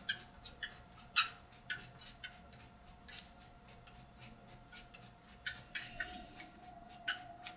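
Treadmill motor running with a steady whine while a large dog's paws and claws click on the belt and deck as it trots, several sharp ticks a second, thinning out in the middle and picking up again later.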